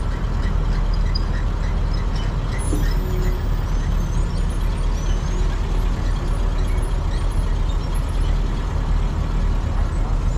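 Caterpillar 3406B diesel of a cabover Peterbilt truck running steadily, a continuous low drone with no change in engine speed.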